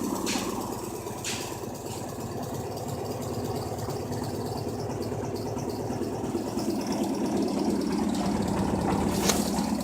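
LG washing machine running with a steady hum and a fast rattling vibration, with a few sharp clicks, about once in the first second and again near the end.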